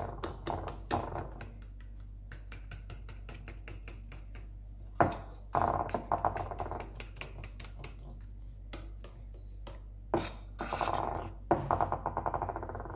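Metal spoon stirring a thick coconut and condensed-milk filling in a ceramic dish, clicking and scraping against the dish in rapid strokes. The scraping grows louder about five seconds in and again near the end.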